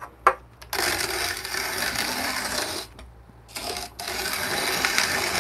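A ROK hand-cranked espresso grinder's conical burrs grinding coffee beans fine for espresso. A couple of knocks come first, then steady grinding that stops for about half a second near the middle and resumes.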